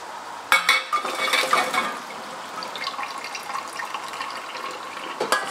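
Cooking water poured out of a saucepan through a metal colander into a stainless-steel sink as boiled chickpeas and potato slices are drained. It starts with a loud, sudden splash about half a second in, then runs on as a steadier, quieter pour.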